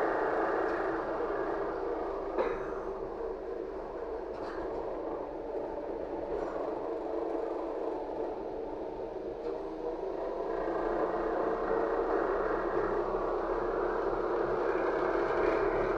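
Running noise inside the passenger cabin of a LiAZ-5280 trolleybus under way. The steady noise eases off for several seconds and then swells again, and a single sharp knock comes about two seconds in.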